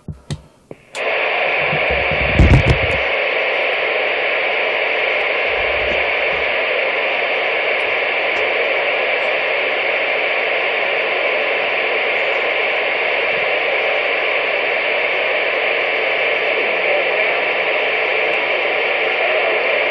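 CB radio receiver putting out a steady hiss of static that starts about a second in, with a low thump at about two and a half seconds.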